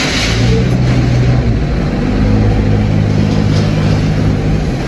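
A motor vehicle engine running steadily with a low, even hum, its pitch settling slightly lower about a second and a half in.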